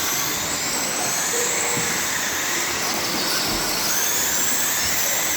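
Several racing radio-controlled cars' motors whining together, the high whine rising and falling in pitch as the cars speed up and slow down around the oval.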